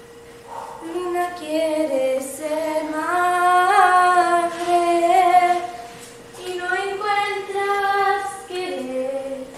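A female voice singing a slow melody with no accompaniment, in two long phrases with a short break about six seconds in.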